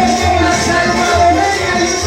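Latin dance music: a steady rhythm with a repeating bass line and shaker-like percussion.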